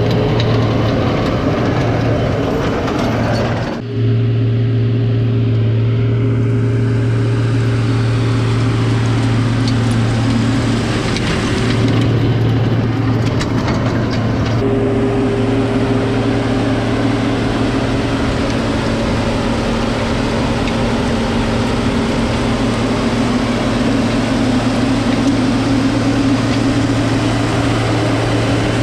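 Case Puma tractor engine running steadily under load, pulling a power harrow and seed drill combination through dry soil. A steady drone with a short dip about four seconds in.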